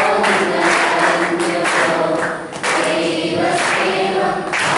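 A group of voices singing a song together, held notes that shift in pitch throughout.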